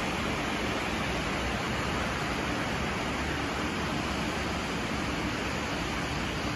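Steady, unbroken rushing hiss of heavy storm rain, with a low rumble underneath.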